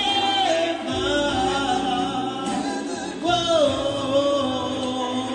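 Singing over music, with held notes that bend and glide in pitch.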